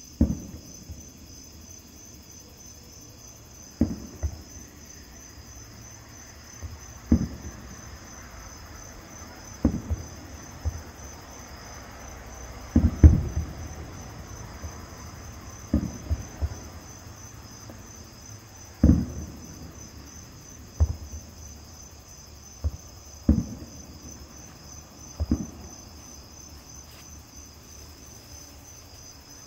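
Distant fireworks shells bursting: a dull low boom every couple of seconds, about fifteen in all, some in quick pairs, the loudest cluster about halfway through. A steady pulsing chorus of night insects chirps underneath throughout.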